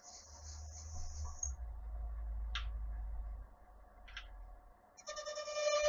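Metal lathe running with a light skimming cut on a toothed pulley: a low hum with a few clicks. About five seconds in, a loud, steady, high-pitched ringing tone with overtones starts.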